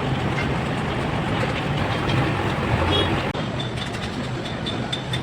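A heavy vehicle's engine running steadily, with a brief sharp break a little over three seconds in.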